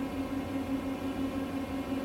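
A steady mechanical hum: a low drone with a fainter, higher steady tone above it, unchanging throughout.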